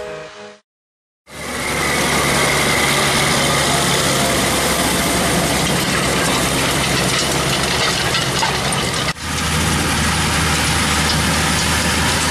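Claas Xerion 5000 tractor's diesel engine running steadily under load as it pulls a Horsch tillage implement, a deep steady drone that fades in after a brief silence. It breaks off for an instant about nine seconds in, then carries on at a slightly lower pitch.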